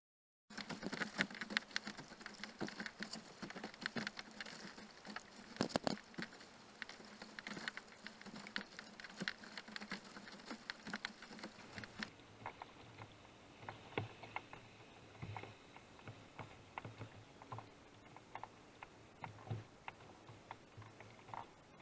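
Water pattering from kayak paddling: a fast, irregular run of small drips and splashes. About halfway through, the sound turns duller, with a few low knocks.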